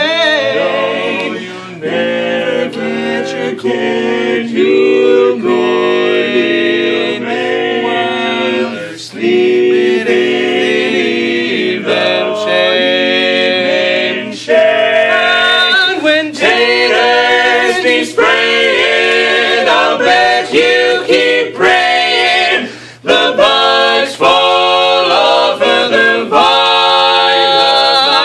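Male barbershop quartet singing a cappella in close four-part harmony: sustained ringing chords in phrases, with brief breaths between phrases about a third of the way in and again about four-fifths of the way through.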